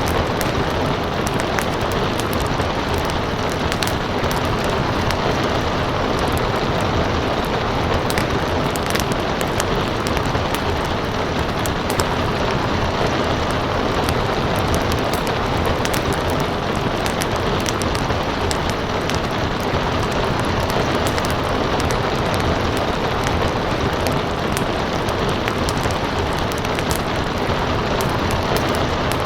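Steady rain with a crackling wood fire, its small sharp pops scattered throughout.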